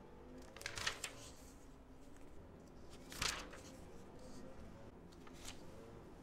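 Soft rustling of a glossy paper catalog as a page is handled and turned, with brief rustles about a second in and just past three seconds.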